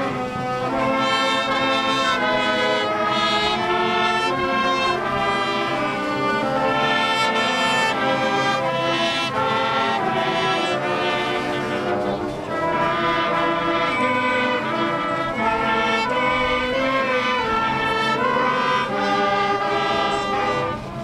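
Brass band playing a tune in several parts.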